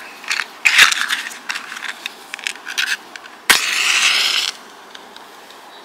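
Wooden safety match scraped against a matchbox striker: a few scratchy strokes in the first second, then a sharp strike about three and a half seconds in as the match flares and hisses for about a second.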